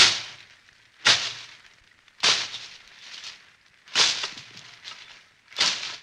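A bolo knife chopping: five sharp, hard chops at uneven intervals, each trailing off over about half a second.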